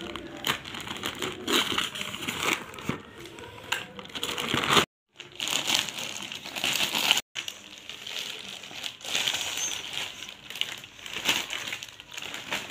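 Polythene courier mailer crinkling and rustling as it is cut open with scissors and pulled apart, with many small crackles. The sound breaks off briefly twice.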